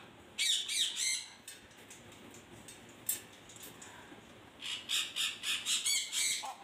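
Blue-and-yellow macaw giving short, harsh squawks: three near the start, then a quick run of about eight near the end, with a single click in between.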